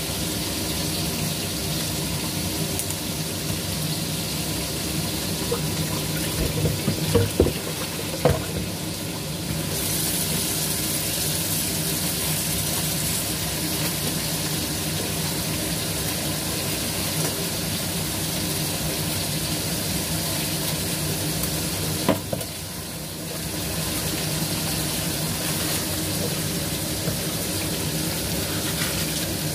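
A kitchen knife cutting a cabbage on a wooden chopping board, with a few sharp knocks about six to eight seconds in and once more past the twenty-second mark. A steady hiss and hum run underneath.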